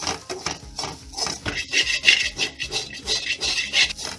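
Metal spatula scraping and stirring grated coconut dry-roasting in a steel kadai: a rapid, uneven run of scrapes against the pan, busiest in the middle.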